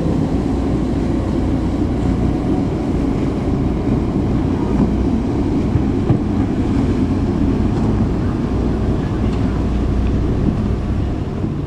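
Boat engines running steadily, a loud low drone from a speedboat and a small outboard-powered wooden boat out on the water.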